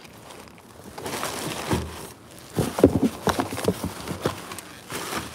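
Cardboard box being handled, with packing paper rustling and crinkling and irregular knocks and scrapes, busiest about two and a half to three and a half seconds in.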